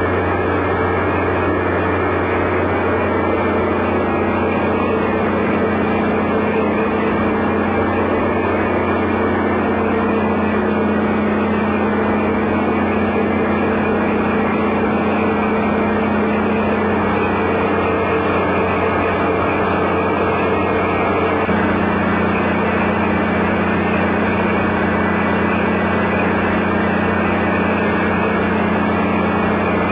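Diesel engine running steadily at constant speed, a loud, even low hum.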